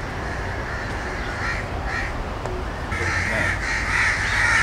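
Crows cawing: a couple of single caws, then several crows calling over one another almost continuously from about three seconds in.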